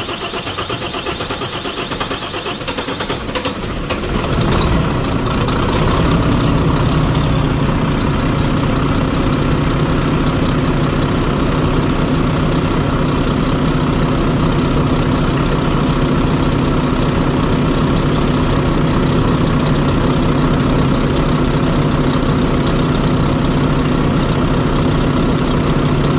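Volvo FH4 truck's diesel engine just after starting on freshly fitted injectors: it runs rough for the first few seconds, comes up in level about four to six seconds in, then idles steadily. The knock it was brought in for is not heard for now.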